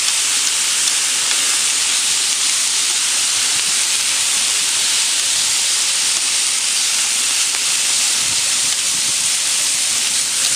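Cabbage sizzling with a steady loud hiss as it is stir-fried in rendered pork fat on a hot electric barbecue griddle plate, its water turning to steam on the hot metal.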